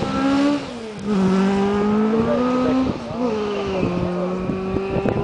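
Historic rally car's engine running hard on a gravel stage as the car drives away. The engine note drops sharply about a second in and again about three seconds in, and holds steady or climbs slowly in between. It grows fainter, with a few sharp clicks near the end.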